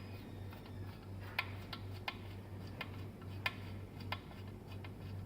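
Sharp metallic clicks, irregular and about one or two a second, as the chain tensioner bolts at a fixed-gear bike's rear dropouts are screwed in with a hand tool, over a steady low hum.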